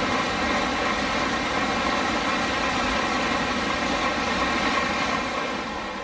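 N700-series Tokaido Shinkansen passing through the station at high speed without stopping: steady, loud running noise of wheels and air, easing off near the end.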